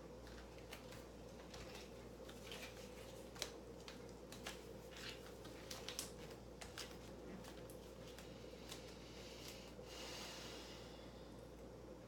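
Quiet room tone with a steady low hum, broken by scattered soft clicks and rustles of a person moving barefoot on a tile floor and fitting an elastic resistance band around the ankles, then a breathy exhale near the end.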